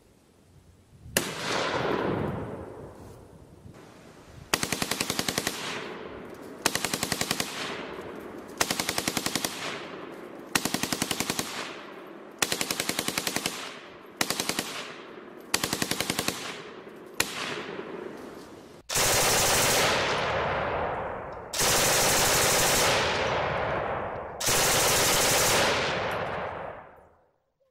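Automatic machine-gun fire, a recorded sound effect: one shot with a long echoing tail about a second in, then about nine short bursts of rapid fire, each ringing off, and finally three longer, louder sustained bursts.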